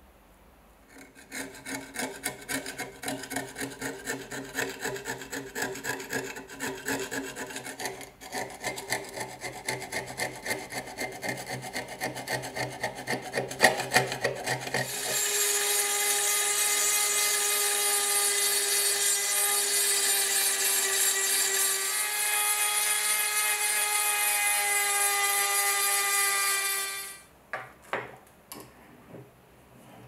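Rapid, uneven scraping strokes on rusty steel for about fourteen seconds. Then a rotary tool with a small grinding bit runs steadily against the knife blade with a high whine for about twelve seconds, dipping slightly in pitch midway before it stops, and a few clicks follow.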